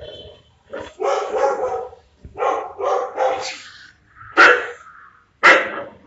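Tan short-haired dog barking, about five barks spread over a few seconds, the last two the loudest.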